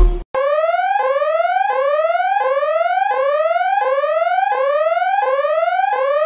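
Police van siren sounding a repeating rising sweep: each tone climbs steadily for about two-thirds of a second, drops back and climbs again, nine times over. It cuts off suddenly at the end.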